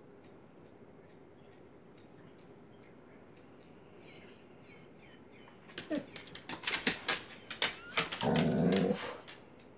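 Dog making a short yelp and then a brief rough growl near the end, amid a quick run of sharp clicks.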